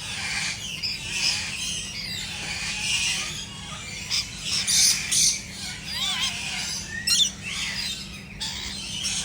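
Several birds chirping and squawking with overlapping calls, with a few louder, sharp squawks about five seconds and seven seconds in.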